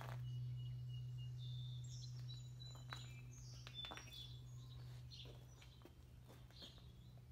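Faint birdsong: scattered short chirps and thin whistles over a steady low hum.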